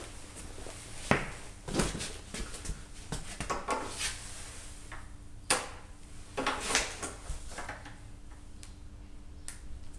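Pliers gripping and working a small T-shaped nail out of a wine barrel's steel hoop: irregular clicks and scrapes of metal on metal and wood. The loudest click comes about five and a half seconds in.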